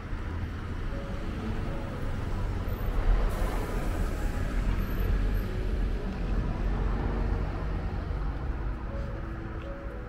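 Road traffic on a town street: vehicles driving past, a low rumble that swells about three seconds in and then eases off.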